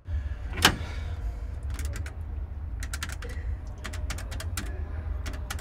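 One loud click, then a run of quick, short clicks in groups of two or three as a number is punched in on a payphone's metal keypad, over a steady low rumble.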